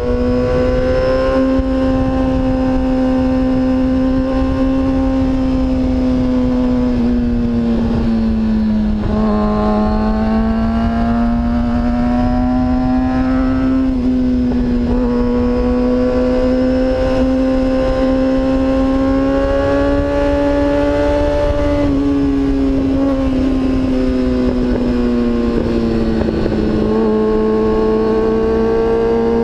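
2013 Kawasaki Ninja ZX-6R 636's inline-four engine running at a steady high cruise under the rider, its pitch sagging and climbing gently as the throttle is eased and reopened through the bends, over a low rumble of wind and road noise.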